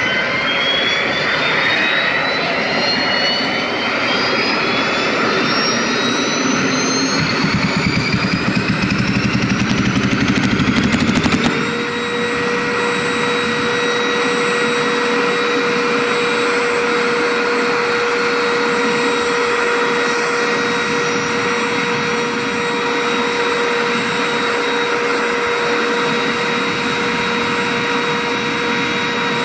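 Pirna GT028 gas turbine spooling up during start-up: a rising whine over a low pulsing rumble. About eleven seconds in the rumble drops away and it settles into a steady high-pitched whine at idle.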